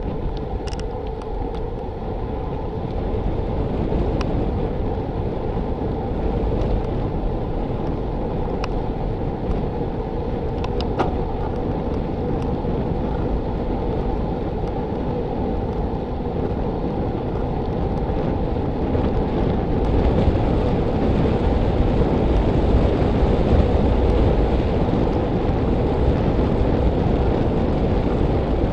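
Steady wind rushing over the microphone of a camera moving along a paved road, with low road rumble underneath. There are a few light clicks in the first eleven seconds or so, and it gets a little louder in the second half.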